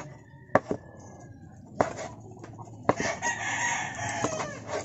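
Large kitchen knife chopping boiled beef on a wooden cutting board, a few sharp knocks spread over the first three seconds. A rooster crows about three seconds in, the loudest sound.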